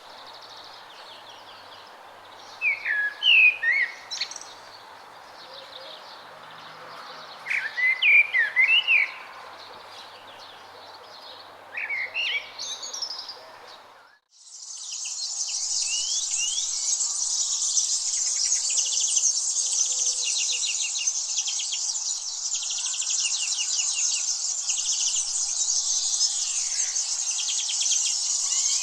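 A songbird sings short warbled phrases about every five seconds over a soft background hiss. About halfway through, the sound changes abruptly to a loud, steady high-pitched insect chorus, with a few bird chirps mixed in.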